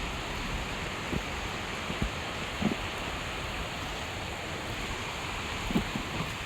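Steady rushing hiss of water, with a few soft low thumps scattered through it.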